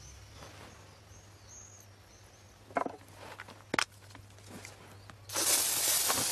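Quiet room with two short soft knocks midway, then about a second of loud, hissing rush near the end as a woman is roused from sleep in bed.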